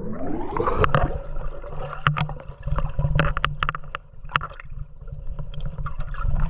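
Sea water sloshing and gurgling around a GoPro, with many sharp clicks and a steady hum that rises in pitch during the first second, then holds.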